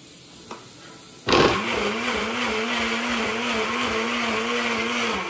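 Countertop blender switched on about a second in, its motor running steadily as it blends a smoothie, then cut off near the end.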